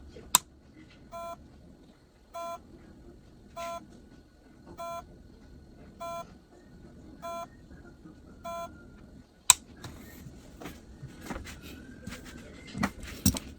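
A faulty hard disk drive gives seven short, evenly spaced beeps about 1.2 seconds apart: the abnormal noise of a failing drive. A sharp click comes just before the beeps, and a few more clicks and knocks follow near the end.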